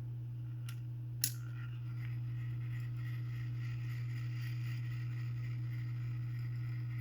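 Urgos triple-chime grandfather clock movement being turned by hand: a sharp click about a second in, followed by a faint metallic ringing tone that holds for several seconds, over a steady low hum.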